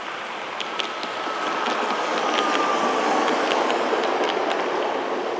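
A 1:22.5-scale garden-railway model train rolling past on the neighbouring track, its running noise swelling and then easing off. The wheels click irregularly over the rail joints, and a thin squeal lasts a couple of seconds.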